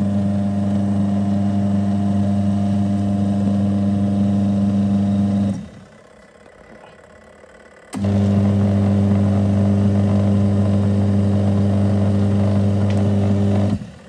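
The wash motor and belt drive of a Twin Spin XPB36-388S twin-tub washing machine run with a loud, steady hum. The motor stops after about five and a half seconds and starts again about two seconds later. The drive belt is shedding shredded pieces; the owner suspected it of vibrating, but judges it to be running fine.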